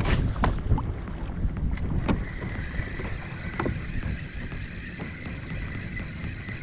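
Water rushing and slapping against a moving fishing kayak's hull, with wind rumbling on the microphone. Several sharp clicks come in the first two seconds, and a faint steady high whine joins a little after that.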